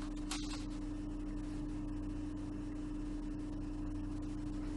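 A steady low hum, one held tone with fainter lower tones beneath it, over light hiss.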